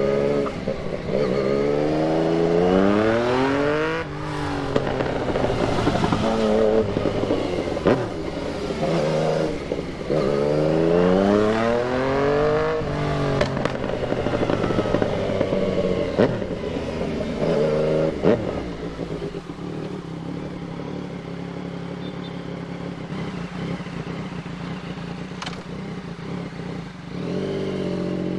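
Yamaha MT-09 inline three-cylinder engine being ridden hard, its note repeatedly climbing and dropping as the bike accelerates and eases off, with a few sharp cracks along the way. About two-thirds through it settles to a steady note, then picks up again near the end.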